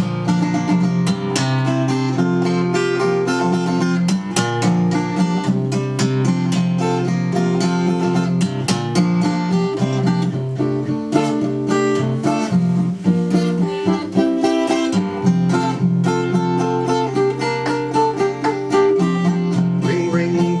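Acoustic guitar played live, plucked and strummed, in an instrumental break between sung verses of a song.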